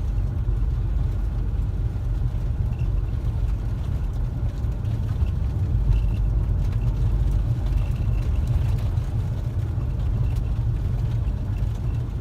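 Car driving on snow-covered roads: a steady low rumble of engine and road noise.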